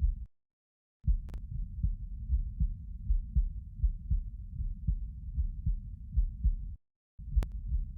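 A human heartbeat heard close up through a chest microphone, recorded lying down: a steady rhythm of low, dull thumps. The sound cuts out to dead silence twice, briefly, once early and once near the end, and there are a few faint clicks.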